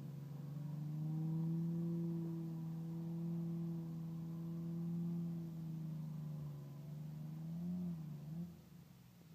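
Suzuki Carry mini truck's small engine running at steady revs under load as it pushes a deep pile of wet leaves. Its note wavers, then drops away near the end.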